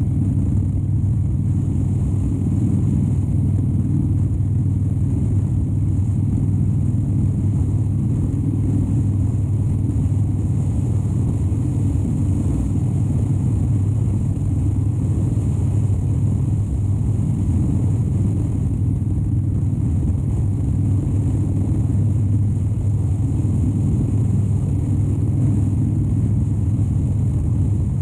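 2013 Harley-Davidson Dyna Wide Glide's 103-cubic-inch V-twin running steadily under way, holding an even speed with no change in revs.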